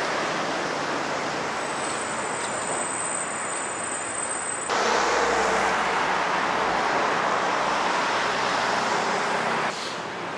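Steady rumble of road traffic, stepping up suddenly in level about five seconds in and dropping back shortly before the end. A thin high whine sits over it for a couple of seconds in the first half.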